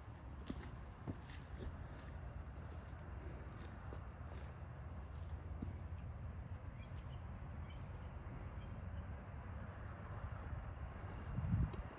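Insects chirring steadily in a high, finely pulsing drone, over a low rumble of wind on the microphone that swells briefly near the end. A few short bird chirps come through in the middle.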